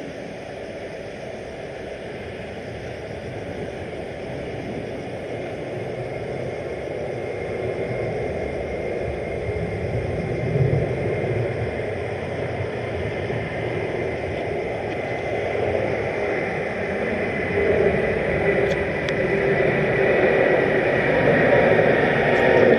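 Boeing 787-9 jet engines on a go-around, a steady roar with a thin high whine, growing slowly louder as the airliner comes nearer.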